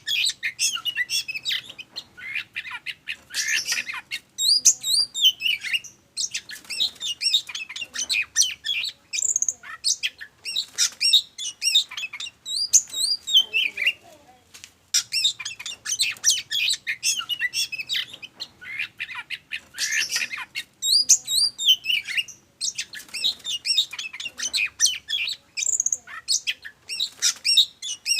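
Oriental magpie-robin (kacer) singing a fast, varied song of sweeping high whistles, quick trills and harsh chirps, with only brief pauses. The same passage seems to come round again after about sixteen seconds. It is a lure song meant to excite other magpie-robins into singing.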